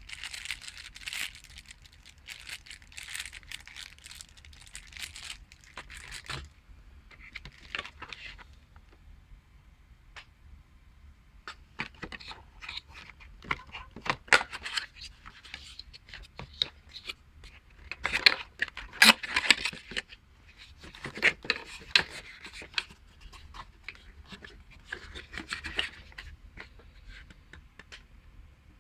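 Handling of plastic packaging and a cardboard box: crinkling rustles for the first several seconds, then a long stretch of sharp clicks, crackles and scrapes, loudest about two-thirds of the way through.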